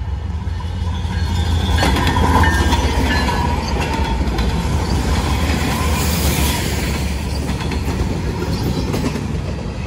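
BNSF freight train passing close by: a consist of several diesel-electric locomotives rumbling past, with steel wheels rolling on the rails. The sound is loudest as the locomotives go by, about two to three seconds in.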